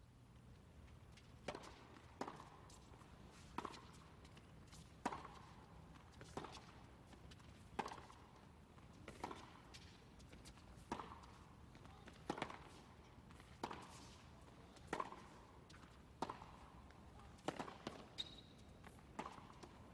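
Tennis ball being struck back and forth in a long baseline rally: a sharp racket strike about every second and a half, with fainter ball bounces between the strikes. A short high squeak near the end, likely a shoe on the court.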